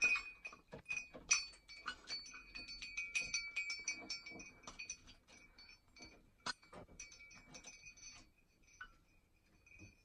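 Metal clinking from a parrot's hanging toy, its chain and clips knocked about in quick irregular clicks over a ringing tone. The ringing fades about eight seconds in, leaving only scattered faint clicks.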